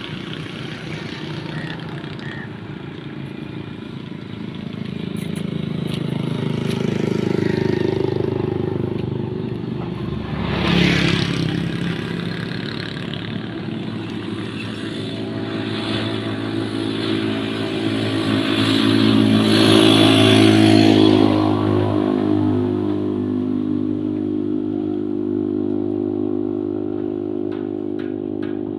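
Motor vehicle engine noise that swells and fades, loudest about eight seconds in and again around twenty seconds in, with a brief louder burst about eleven seconds in.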